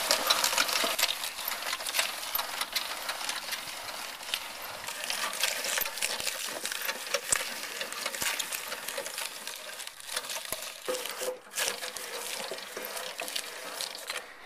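Hand-cranked fruit crusher's toothed rollers crunching apple quarters as the handle is turned: a dense, irregular run of crunches and clicks.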